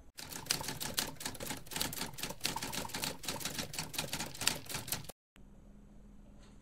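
A rapid, irregular run of sharp mechanical clacks, several a second, lasting about five seconds and then cut off abruptly. After a moment of silence there is only faint room tone with a low steady hum.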